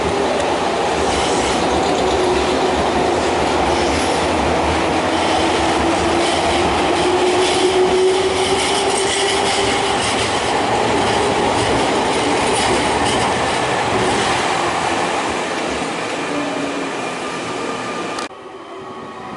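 Nankai 6000 series stainless-steel commuter train pulling out and accelerating past close by: wheels clacking over rail joints and some wheel squeal, with a motor hum that rises in pitch. About 18 seconds in it cuts off suddenly to much quieter station background.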